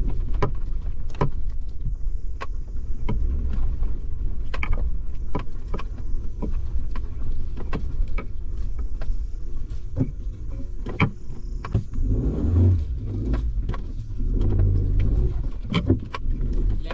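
Suzuki Jimny driving over a rough off-road track: a steady low engine and drivetrain rumble with frequent sharp knocks and rattles from the bodywork and suspension. The rumble swells louder several times in the second half.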